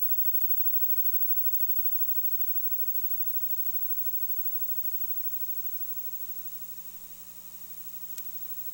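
Steady hiss with a low electrical hum, and no other sound apart from a faint click about a second and a half in and another near the end.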